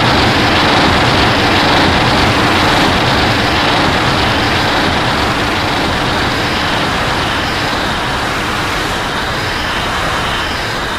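A long, loud, steady rushing noise from an edited Godzilla sound effect, with no clear pitch, easing off slightly as it goes.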